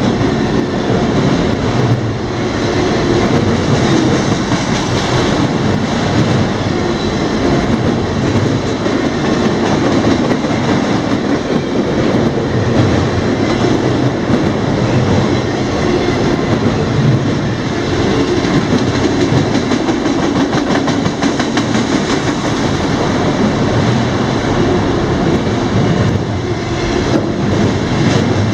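Freight train cars rolling past at speed, a steady rumble of wheels on rail with a fast clickety-clack of wheels over rail joints.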